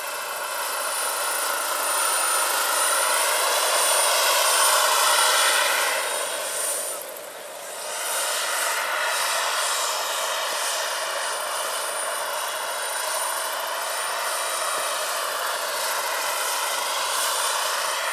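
Large turbine-powered scale model K-Max helicopter in flight: a GP70 model gas turbine gives a steady high whine over the buzz of its twin rotors, and the pitch slides up and down as the helicopter moves about. The sound drops briefly about seven seconds in, then comes back.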